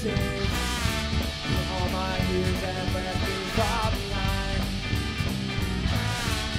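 Live rock band playing an instrumental passage: amplified electric guitars, bass and drum kit, with a horn section of trumpet and trombone.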